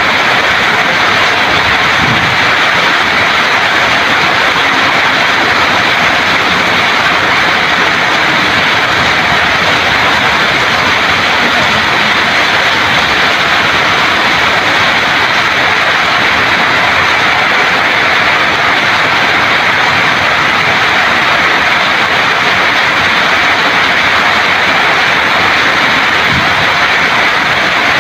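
Heavy rain pouring steadily onto garden foliage, bare soil and brick paving: a loud, even hiss.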